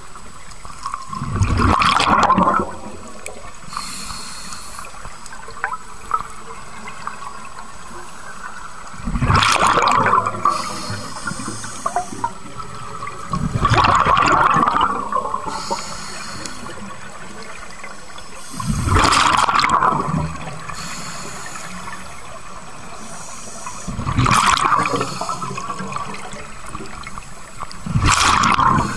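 Scuba diver breathing through a regulator underwater: six loud bubbly rushes of exhaled air, each one to two seconds long, with a fainter hiss of inhaling between them.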